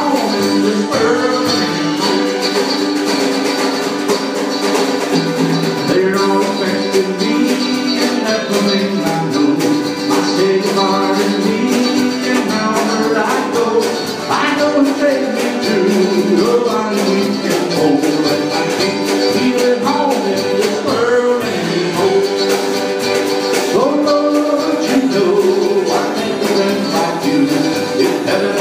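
Small live band playing: strummed acoustic guitar and mandolin over a drum kit with steady cymbal strokes, and a man singing lead.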